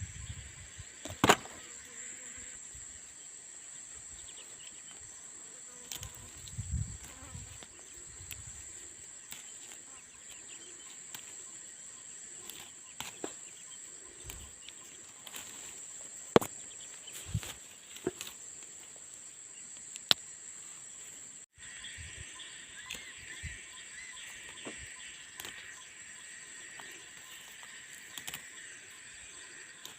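Steady high-pitched buzz of field insects. A second, lower insect buzz joins about two-thirds of the way through. Occasional sharp clicks and knocks sound close by.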